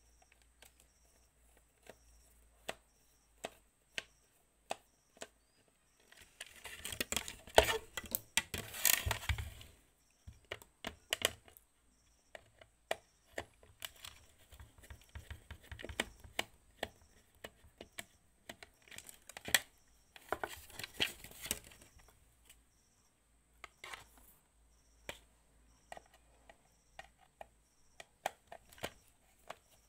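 Hands working over an appliance's wiring: scattered light clicks and taps of wires and plastic parts, with two spells of crinkling, rustling handling noise, one about a quarter of the way in and the other about two-thirds through.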